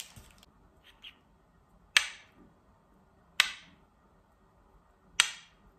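Metal teaspoon clinking three times against a small ceramic bowl as it breaks up crumbled yeast, each clink sharp with a brief ring.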